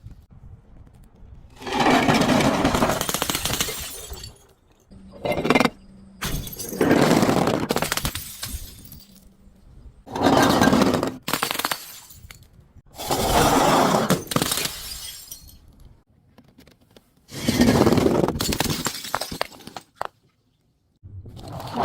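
Glass bottles being crushed and shattering, crunching with a tinkle of breaking glass, in about six separate bursts of one to two seconds each with short pauses between.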